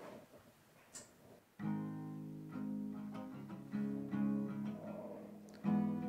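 Acoustic guitar being played in slow chords, starting about a second and a half in, with a louder new chord struck near the end.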